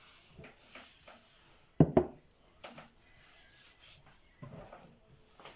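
Kitchen handling noises while a glass jar is filled with a lemon, ginger and honey mixture: a few scattered knocks and rubs, the loudest a pair of sharp knocks about two seconds in.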